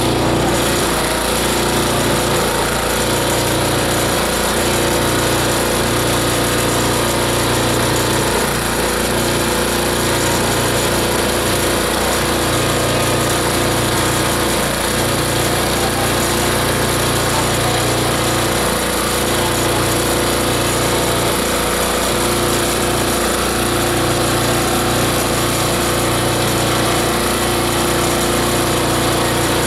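Esteban 9-in-1 chopper-shredder-grinder running steadily under load, a loud continuous mechanical hum and whir as it grinds material into fine particles pouring from its outlet.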